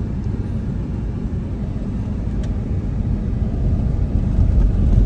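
Low road and engine rumble of a car driving on an unpaved construction road, heard from inside the cabin, growing louder near the end.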